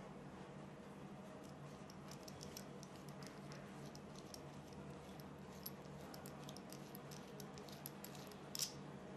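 Faint rapid ticking and scraping of small metal screw threads as an electronic cigarette's atomizer is twisted onto its battery, with one sharper click near the end.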